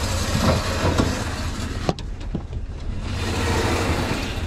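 Steady low rumble of an idling engine, with a sharp knock a little under two seconds in as a car is rolled down a trailer's ramps.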